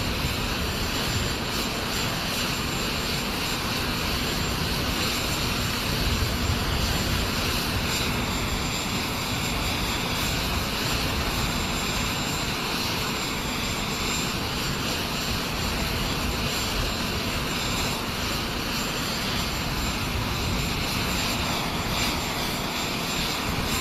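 Steady jet aircraft engine noise on an airfield ramp, an unbroken whine and rumble with no clear changes.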